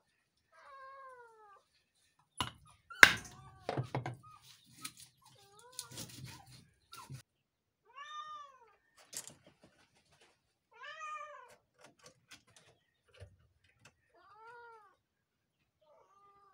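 A domestic cat meowing again and again, one short rising-and-falling meow every two to three seconds. A few sharp knocks about three seconds in are the loudest sounds.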